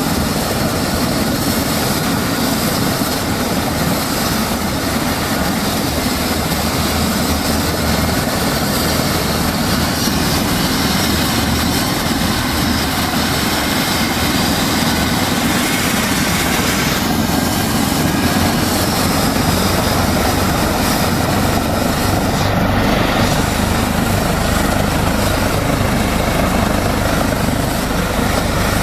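Air-ambulance helicopter running on the ground, its turbines and rotors making a steady loud noise that grows a little louder in the second half.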